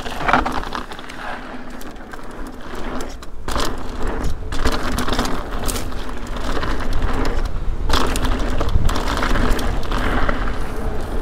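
Ibis Ripmo mountain bike rolling fast down a dry dirt singletrack: tyres crunching over dirt and loose stones, with the bike rattling. The noise dips briefly twice, about three and four and a half seconds in.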